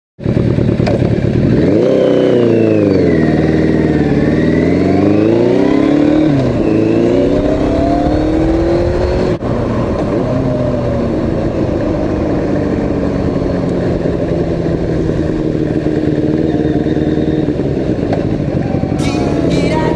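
Yamaha FZX750's inline-four engine on the move through a short aftermarket exhaust, its revs falling and rising over the first several seconds and then holding fairly steady. A clatter of sharp clicks comes in near the end.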